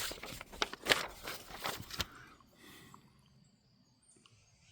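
A few short clicks and rustles in the first two seconds, then near-silent room tone.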